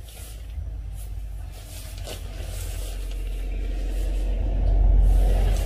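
A car passing on the road: a deep rumble that builds to its loudest about five seconds in, then starts to fade.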